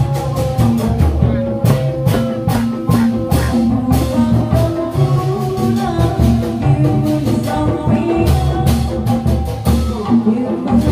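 Dangdut music: a held melody line over a steady, busy drum beat and bass.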